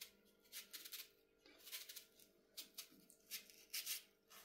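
Knife slicing through leeks: a series of faint, crisp cuts at an irregular pace.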